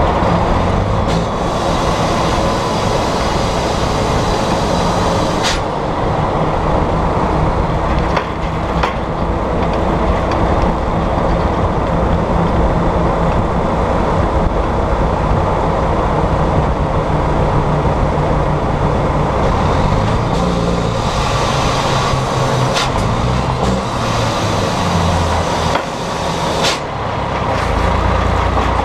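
Volvo FMX 460's 13-litre diesel running under way through a broken, straight-through exhaust pipe, heard close to the stack, with road noise. The engine note shifts up and down a few times in the second half, with a few sharp clicks.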